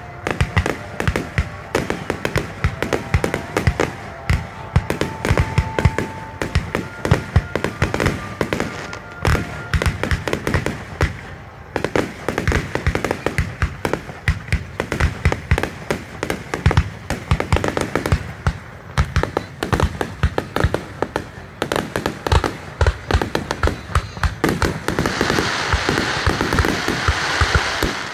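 Fireworks display: a rapid barrage of aerial shells going off, several bangs a second. From about 25 s in, a dense crackling hiss rises under the bangs, as glittering crackle stars burst.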